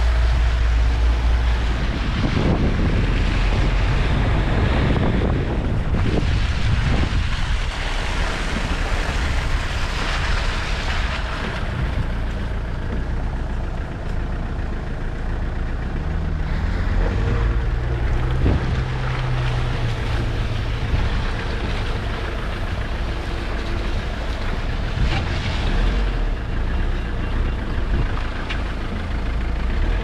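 A Land Rover 4x4's engine running as it moves along an off-road trail, its note shifting in the middle, with wind buffeting the microphone.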